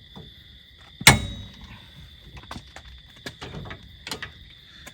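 A single sharp clank of a tool against metal about a second in, ringing briefly, followed by a few lighter clicks and taps.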